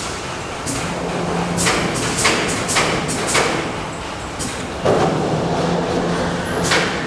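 A two-wheeled self-balancing scooter (hoverboard) being stepped off and lifted: a string of sharp plastic knocks and clicks, with a low electric hum that sounds briefly near the start and again for about two seconds in the second half.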